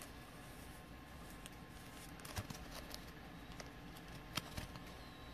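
Faint rustling and a few light clicks of trading cards and a clear plastic card sleeve being handled.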